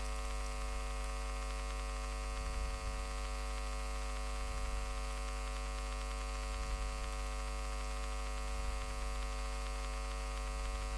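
Steady electrical mains hum, a stack of even tones over a faint hiss.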